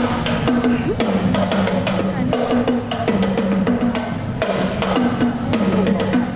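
Percussion ensemble playing a fast, dense rhythm of drum and percussion hits over a low pitched line that alternates between two notes.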